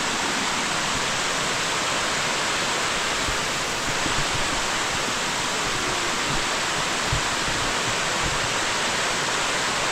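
Waterfall rushing steadily close by, a loud, even roar of falling water.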